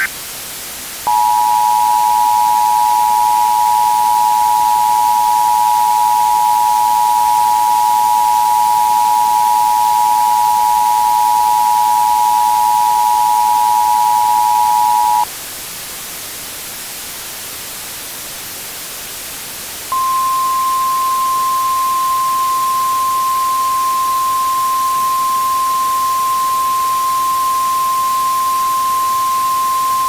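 Emergency Alert System two-tone attention signal: two steady tones sounding together for about fourteen seconds over a constant static hiss. The tones cut off, the hiss runs alone for about five seconds, then a single steady tone a little higher in pitch comes in and holds.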